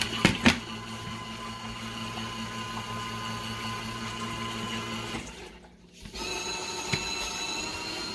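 Small portable washing machine's motor running with a steady whine as it agitates the wash. A couple of sharp knocks near the start; about five and a half seconds in the motor cuts out for half a second, then starts again.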